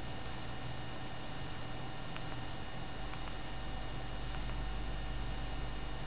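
Märklin model train running on its track: a steady electric hum with a low rumble that grows stronger about halfway through, and a few faint clicks.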